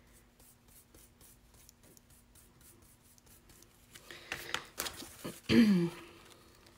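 Chippy brush spreading Mod Podge glue on the wood, heard as faint scratchy strokes about three a second, with louder rustling scrapes about four seconds in. A short murmur of voice sounds about five and a half seconds in.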